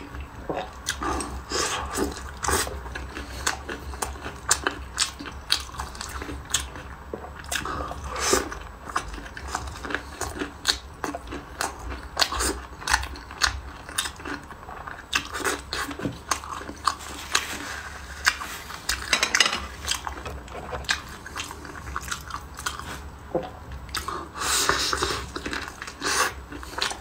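Close-miked mukbang eating sounds: a person biting and chewing spicy crayfish and battered fried food, with many short crunches and clicks one after another.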